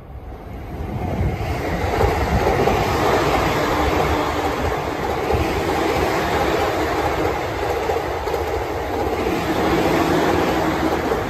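Green-and-orange-striped JR commuter electric train (Shonan-Shinjuku Line) passing at speed: the noise of its wheels on the rails builds over the first two seconds as it approaches, then holds loud and steady as the cars go by.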